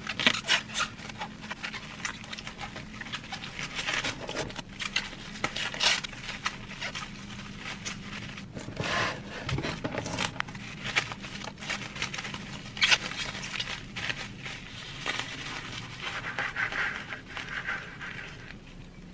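Plastic cling wrap crinkling and rustling in irregular crackles as it is pulled and pressed tightly around a lettuce-wrapped sandwich. Near the end a knife cuts through the wrapped lettuce with a crisp crunch.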